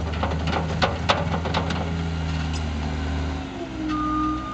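John Deere D-Series skid steer's diesel engine running steadily, with a quick series of sharp clicks in the first second and a half. The engine eases off near the end, and the reversing beeper starts sounding.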